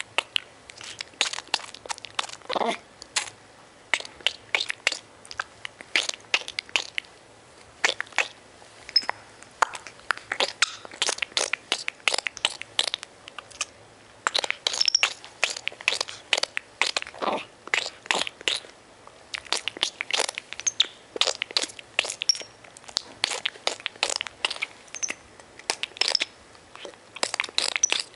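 Baby capuchin monkey making rapid, irregular clicking and smacking mouth sounds as it mouths and nibbles at denim, with a few brief high squeaks scattered among the clicks.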